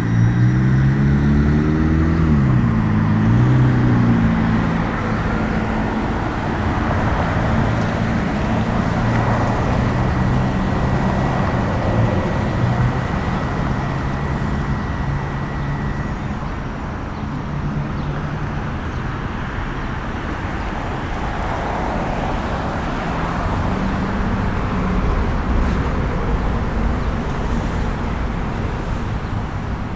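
City intersection traffic: engines rising in pitch as vehicles pull away during the first few seconds, then a steady drone of passing traffic. A thin high whine runs until about halfway through.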